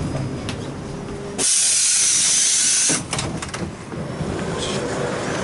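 Pneumatic doors of a bus opening at a stop: a loud hiss of released air lasting about a second and a half, then a few sharp clunks as the door panels move.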